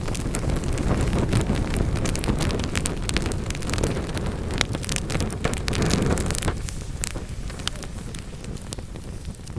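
Wood fire in a fireplace crackling, with many sharp pops and snaps over a low rushing rumble that eases off about two-thirds of the way through.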